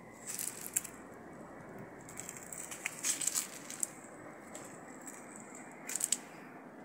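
Crackling and crunching of dry leaves and twigs underfoot as someone walks, in three short clusters: about half a second in, around three seconds in, and near six seconds in.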